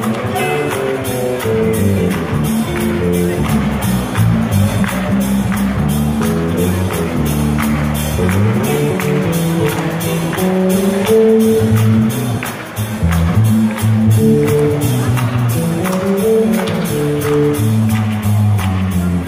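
Live doo-wop band playing: electric guitar, bass guitar and drums keep a steady beat.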